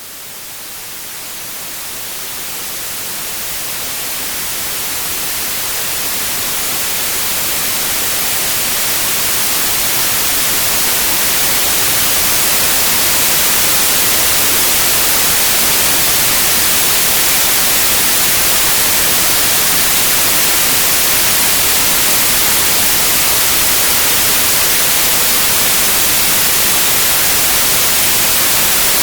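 Steady white noise, an even hiss strongest in the high end, fading in and growing louder over the first dozen or so seconds before holding level.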